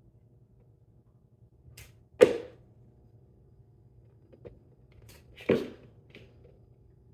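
Two sharp thumps about three seconds apart, each just after a brief faint swish: a cat leaping at a feather wand toy and landing on the floor.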